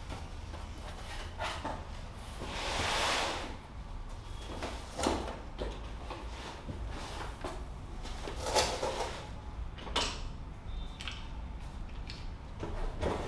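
Unboxing sounds: a cardboard box opened and fabric leg sleeves slid out and handled, with a swell of rustling about three seconds in and a few sharp knocks and clacks later on.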